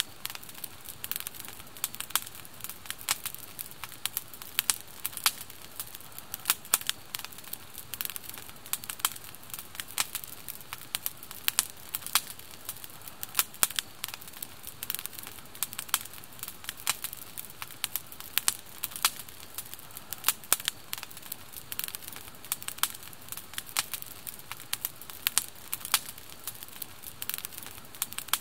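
Wood campfire crackling, with many small sharp pops coming irregularly several times a second over a low hiss.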